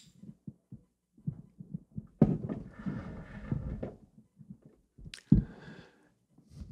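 A string of soft, low knocks and thumps, with two longer rustling sounds, the first about two seconds in and the second near five seconds.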